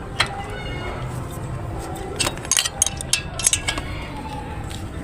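Sharp metallic clinks of a 10 mm wrench working on engine bolts, tightening loose ones. There is a single click just after the start, then a cluster of clinks from about two to four seconds in.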